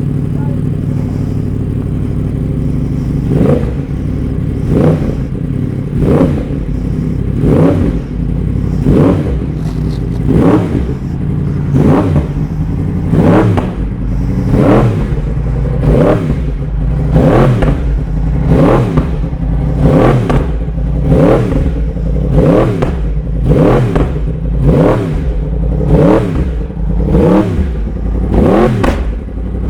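Yamaha R1 inline-four with an SC Project titanium exhaust idling and then being blipped over and over, about one quick rev every second and a half. The engine is hopping and popping.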